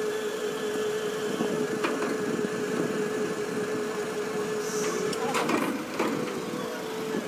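Heavy crane machinery running with a steady whine over a rushing noise, with a few knocks in the second half.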